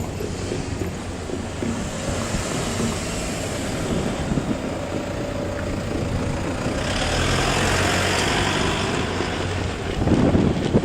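DE10 diesel-hydraulic locomotive running while shunting, a steady low engine drone. A louder hissing rush swells about seven seconds in, and wind buffets the microphone near the end.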